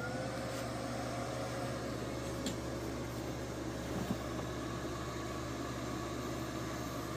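Bestarc MIG145 MIG welder just switched on, its internal cooling fan starting up and then running with a steady whir and a held hum.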